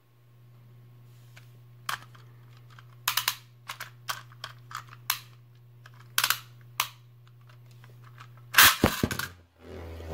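Sharp plastic clicks as a Beyblade Burst top, Dusk Balkesh, is handled and fitted to its launcher, then a loud launch about eight and a half seconds in as the top is ripped off the launcher into a plastic stadium. Near the end it is spinning on the stadium floor with a continuous whirring noise.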